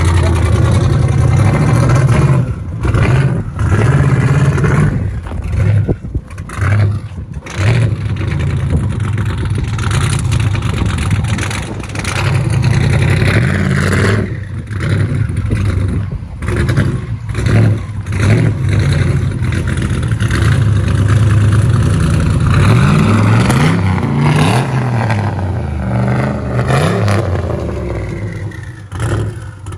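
Twin-turbocharged LT4 V8 of a 2019 Camaro ZL1 running loud and revving under acceleration, with several brief drops in the sound and the pitch climbing repeatedly later on.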